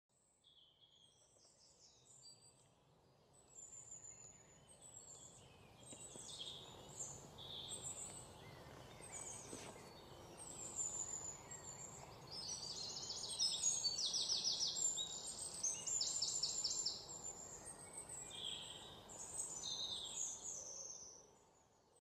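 Birds chirping and trilling, with rapid runs of repeated notes, over a faint steady outdoor hiss; it fades in over the first few seconds and fades out near the end.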